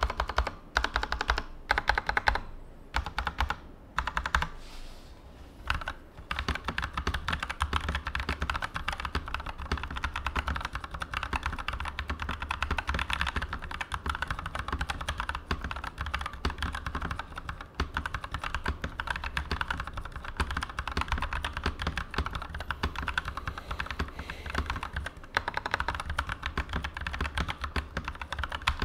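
Durgod Cavalry 87 wireless mechanical keyboard with Kailh Turbo switches and PBT double-shot keycaps being typed on. A few separate keystrokes at first, then about six seconds in, fast continuous typing: a dense clatter of key clicks.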